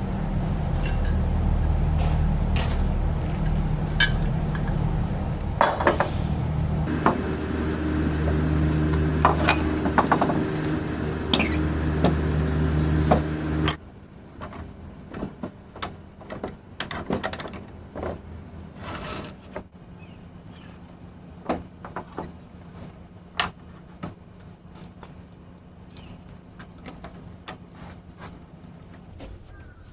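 A steady machine hum with scattered clinks and knocks, cutting off suddenly about fourteen seconds in. After that come lighter scattered knocks and clatter, like wood pieces and tools being handled on a bench.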